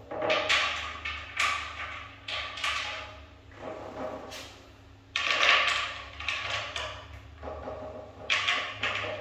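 Irregular knocks and scrapes from a dark wooden furniture panel being handled where it lies on a tile floor, some short and some drawn out over a fraction of a second, with a steady low hum underneath.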